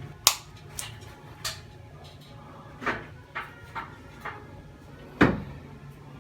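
A string of sharp knocks and clatters, about eight of them, the loudest about five seconds in, over a steady low hum.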